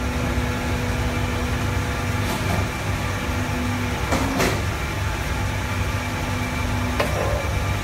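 150-ton hydraulic powder compacting press running, its hydraulic power unit giving a steady low hum. A steady tone drops out about four seconds in and comes back a second later. Sharp clunks come from the press cycling, at about two, four and seven seconds, the loudest at about four seconds.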